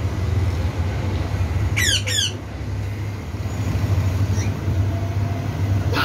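Cockatiel giving two quick, falling squawks in a row about two seconds in, with a few faint chirps later, over a steady low hum.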